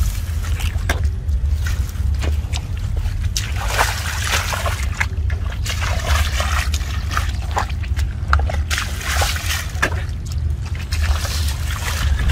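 Water splashing and sloshing in irregular short bursts, over a steady low rumble.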